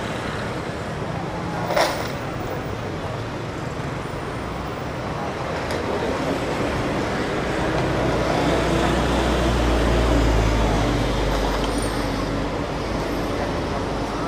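Road traffic noise with background voices. A low vehicle engine sound grows louder and fades again midway through, as a vehicle passes, and there is a single sharp click about two seconds in.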